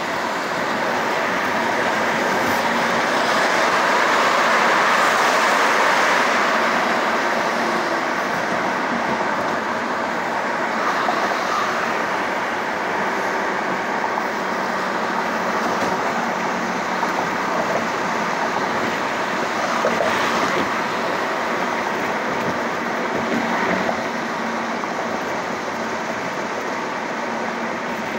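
Steady road noise heard from inside a car cabin at freeway speed: tyres on the pavement and wind rushing past, swelling a little a few seconds in.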